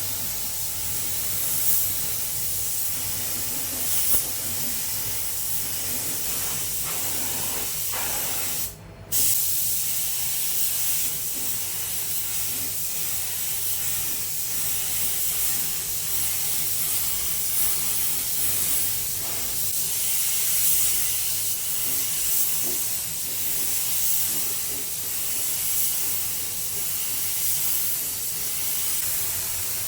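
Paint spray gun hissing steadily as it sprays black non-sanding primer. The spray stops for under half a second about nine seconds in, then resumes, with a low steady hum beneath.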